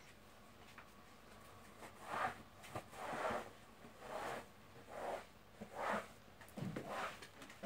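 Cloth-wrapped floor squeegee pushed over the floor in strokes: a soft swish about once a second, starting about two seconds in.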